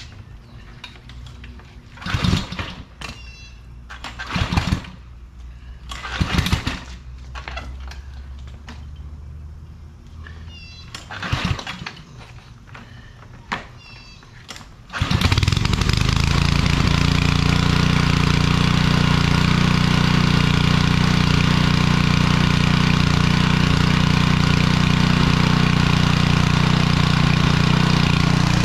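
An engine: several short bursts of sound in the first half, then about halfway through it starts and runs on steadily and loudly.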